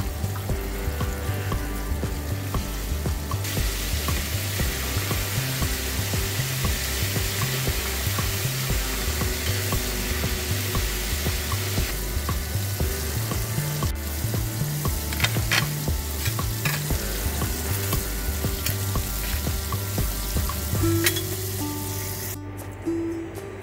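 Flour-coated chicken pieces sizzling as they fry in hot oil, over background music with a repeating bass line. The sizzling stops near the end, leaving only the music.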